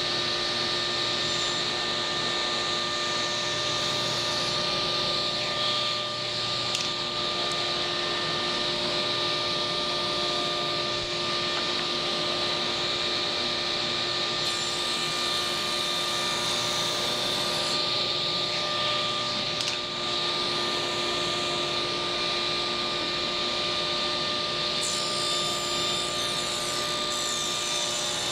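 Ridgid table saw running steadily with a constant whine while a trim blank is pushed along the fence over the spinning blade. It is a shallow scoring pass, the first of several that creep the cut up to final height.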